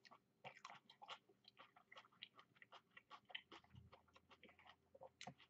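Faint chewing: a person eating food, with soft, irregular mouth clicks and small crunches.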